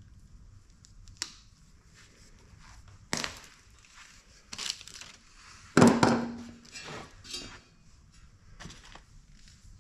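Handling noise on a wooden workbench as pliers, wire and a blower fan in its wire guard are picked up and put down: scattered clicks, knocks and clatter, the loudest a clunk with a short ring about six seconds in.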